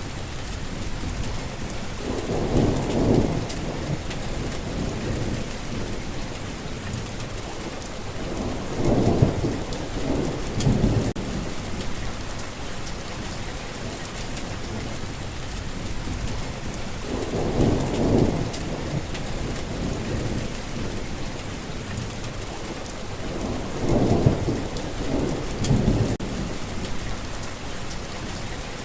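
Steady rain with four low rolls of thunder rumbling up and fading away.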